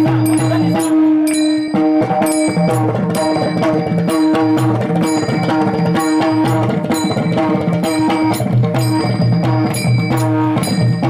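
Instrumental passage of a Warkari bhajan tune: a pakhawaj drum played in a steady rhythm with brass taal hand cymbals struck on the beat, their ringing clear over a harmonium holding sustained notes.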